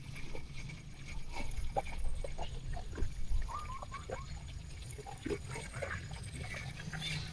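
Faint, scattered short animal calls, bird- or fowl-like chirps, over a low steady background hum.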